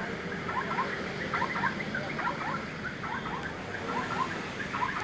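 Small birds chirping, many short high chirps scattered throughout, over a steady background of outdoor street and crowd noise.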